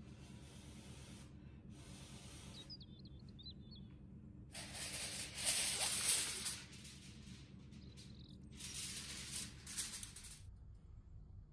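Two bursts of hissing sizzle in the cooking. The first lasts about two seconds and starts around halfway through. The second is shorter and quieter, near the end.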